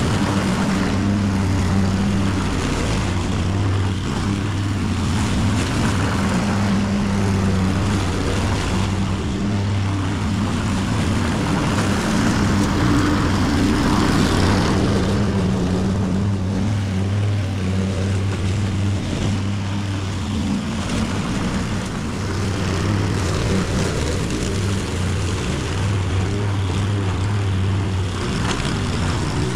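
Honda petrol walk-behind lawn mower running steadily at working speed as it cuts grass, an even engine hum with little change in pitch.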